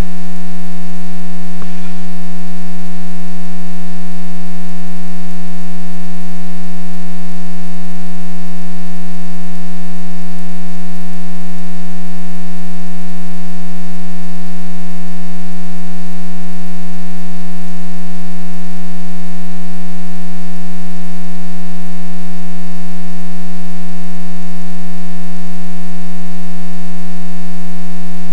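Loud, unchanging hum with a stack of even overtones, pushing the recording to full level. A faint click about two seconds in.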